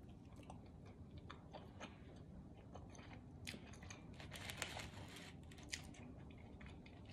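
Faint chewing of pizza crust close to the microphone, with soft crunches and small mouth clicks that grow a little busier near the middle.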